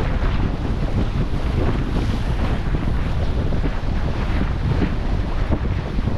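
Wind buffeting the microphone, with water rushing and splashing irregularly along the hull of a Viper 640 sportsboat sailing at speed.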